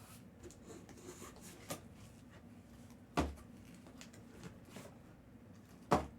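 Tabletop handling knocks: a few light taps and clicks, with two sharper knocks about three seconds in and near the end, as of card boxes being handled and set down.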